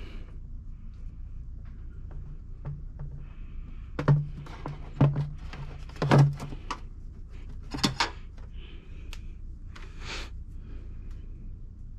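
A few sharp knocks and thunks, about four loud ones between four and eight seconds in, from parts being handled and refitted while the washer reservoir and new washer pump go back into a Subaru Impreza's engine bay.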